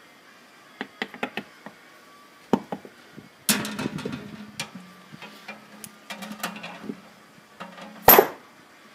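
Metal-on-metal clicks, knocks and clatter from handling a Nissan 300ZX (Z32) aluminium brake caliper while its pistons are pushed back into their bores, with a louder clatter about three and a half seconds in and a sharp loud hit near the end.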